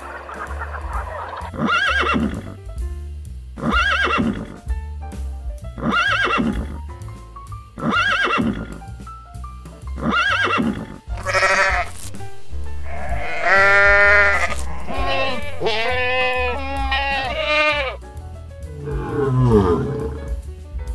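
Background music with animal calls laid over it: five short rising-and-falling calls about two seconds apart, then a long wavering horse whinny in the middle, and near the end a deep falling lion growl.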